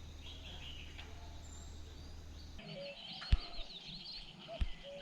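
Small birds chirping and calling in a forest. A low steady hum under the first half stops abruptly a little past halfway, and two sharp knocks follow, the first the loudest sound.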